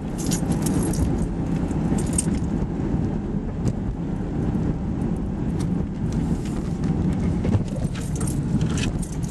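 Inside a moving car: a steady low rumble of engine and road noise, with light metallic jingling scattered over it.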